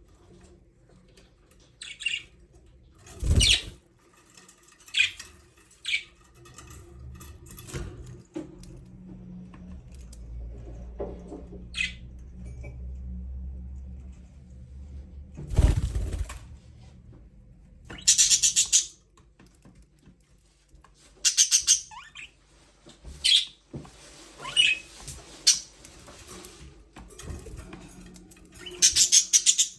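Budgerigars chirping in short, scattered bursts, with wings flapping and two loud sharp thumps, one a few seconds in and one about halfway.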